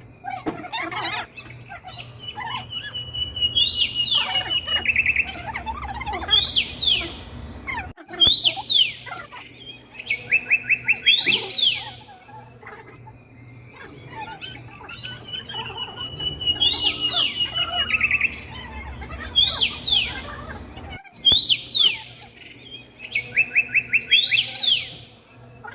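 Recorded birdsong looping as a background track: pairs of quick downward-sweeping chirps, and a held high whistle that breaks into a rapid trill. The sequence repeats about every 13 seconds.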